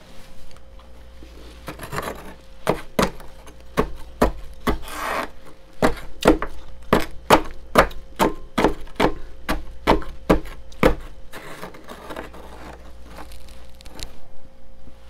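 Spoon scraping and chipping into thick freezer frost: a quick, even run of sharp scrapes, about three a second, from about two seconds in until about eleven seconds in, then softer scraping. A steady low hum runs underneath.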